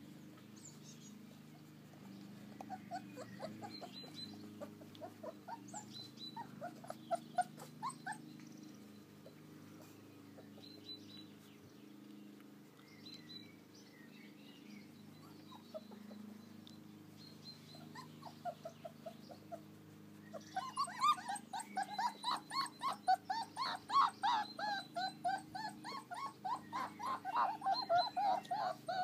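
American Akita puppies whimpering in play, short high calls in scattered runs, then a dense, louder stream of rapid calls starting about two-thirds of the way through.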